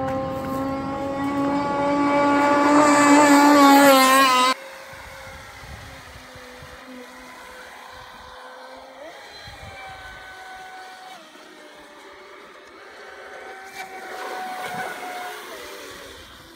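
RC speed boat motors running at high speed: a loud, high steady engine note that rises slightly and grows louder, cut off suddenly about four and a half seconds in. Then a second RC boat, much fainter, its motor pitch stepping up and down as it turns.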